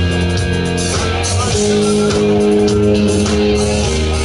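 Live rock band playing an instrumental passage: electric guitars, bass and drums, with no singing.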